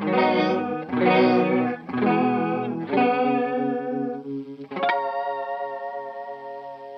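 Electric guitar played through a Nobels CHO mini chorus pedal: chords struck about once a second, four in a row. A fifth chord comes just before 5 s and is left ringing, wavering with the chorus modulation.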